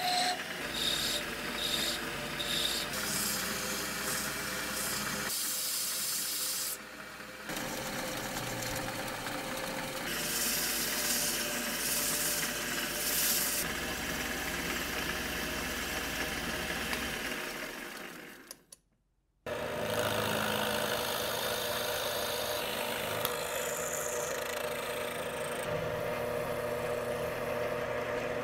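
A wood lathe spins while a flat file rasps against a turned wooden piece, then steel wool rubs the spinning piece. After a brief drop to silence about two-thirds of the way in, a drill press motor runs with a steady hum as its small twist bit bores into wood.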